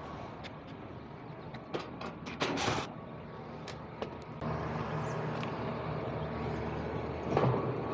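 Sharp metal clicks and a brief clatter as a condenser fan motor is worked loose and lifted out of an HVAC unit, over a steady mechanical hum that gets louder about halfway through.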